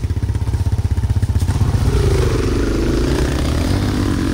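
A small ATV engine idling close by with a fast, steady low chug, then a Kawasaki KLX four-stroke dirt bike revving and accelerating away from about two seconds in, its engine note rising and wavering.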